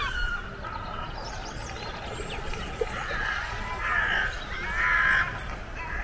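Crows cawing harshly among other bird calls, loudest about three to five seconds in.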